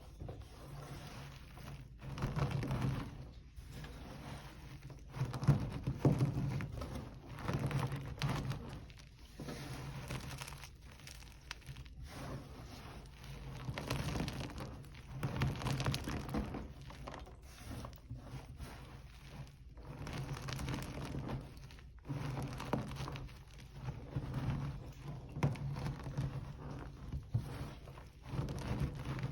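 Hard, crunchy gym chalk being crushed, crunching and crumbling in repeated bouts of a second or two each.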